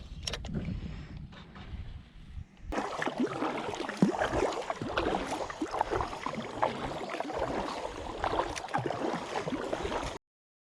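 Water splashing and lapping around a fishing kayak, full of small ticks and knocks. It jumps suddenly louder a little under three seconds in and cuts off abruptly near the end.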